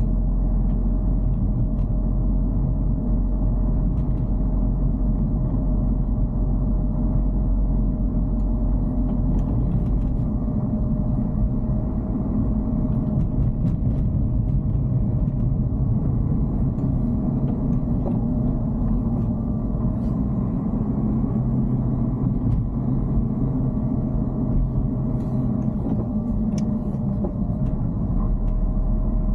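Cabin noise of a Dacia Duster being driven: a steady low engine and road rumble, with a thin steady whine running through it and a few faint ticks.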